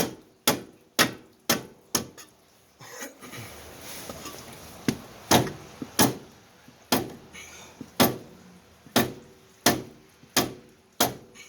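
Rubber mallet striking the steering knuckle again and again, about twice a second with a short pause near the three-second mark, to knock a seized outer tie rod end loose.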